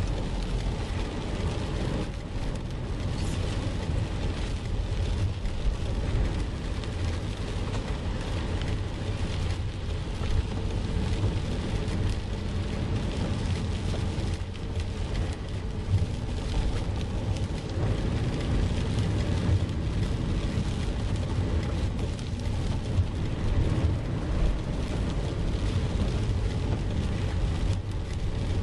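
A car driving through flooded streets, heard from inside the cabin: a steady low rumble of engine and tyres with a constant hiss of water thrown up from the road and rain.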